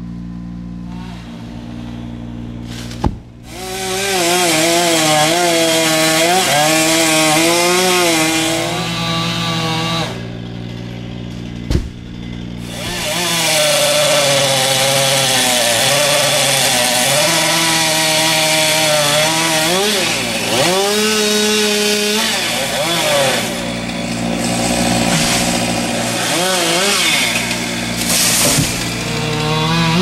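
Chainsaw cutting through a tree trunk, its engine pitch rising and falling as the chain loads and frees in the wood. It runs in two long cuts, starting about three seconds in with a pause around ten to thirteen seconds. A steady low engine hum runs underneath.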